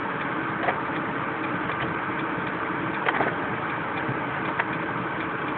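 Think City electric car's cabin heater fan running steadily on its highest step, a constant rush with a faint hum, while the car's 12 V system is under heavy heater load. A few sharp clicks come through it, about a second in, around three seconds in and again a little later.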